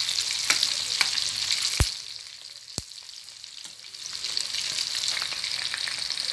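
Breaded chicken pieces deep-frying in hot oil: a steady sizzle with small crackling pops, briefly quieter in the middle. Two sharp clicks stand out, about two seconds in and a second later.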